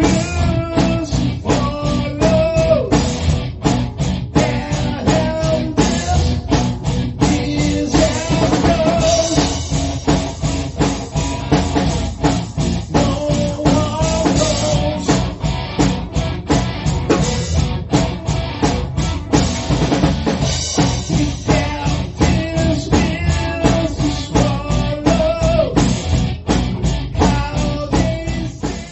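Rock band music with a drum kit driving a fast beat under guitar and melodic lines, which cuts out at the very end.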